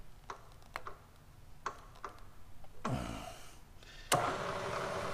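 Light metallic clicks as a tap is worked by hand in the drill chuck of a milling machine. About four seconds in, a sharp click and the mill's motor starts running with a steady hum.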